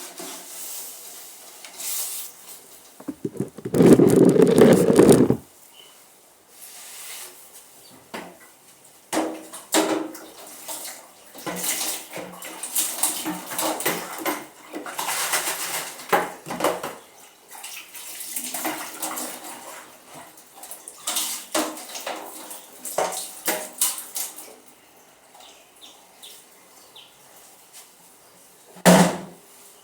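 Dishes and cutlery being hand-washed in a basin of standing water: water sloshing and splashing, with plates and utensils clinking and knocking together. A loud two-second rush of water comes about four seconds in, and another sharp splash or knock comes near the end.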